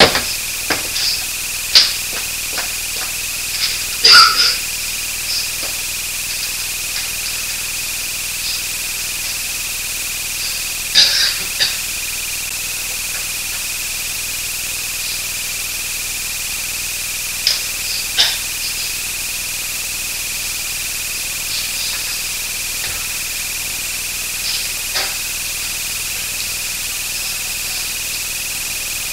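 A steady high-pitched whine, with scattered light knocks and clicks of a classroom, the loudest about four seconds in.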